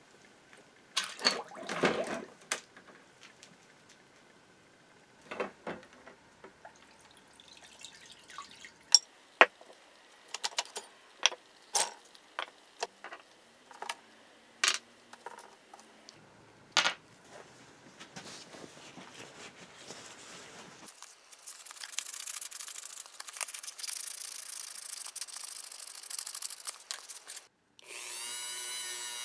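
Liquid dripping and splashing as a parts basket is lifted from a soaking bath, then a series of sharp metallic clinks as small steel drill parts are set down on concrete. A steady rushing noise follows, and near the end a small rotary tool spins up with a rising whine.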